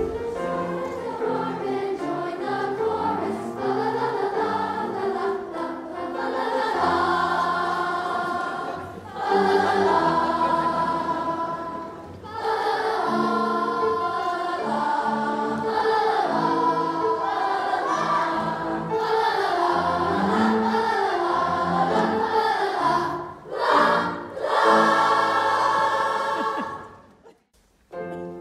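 Large children's choir singing with piano accompaniment. The song swells to its loudest near the end and then stops.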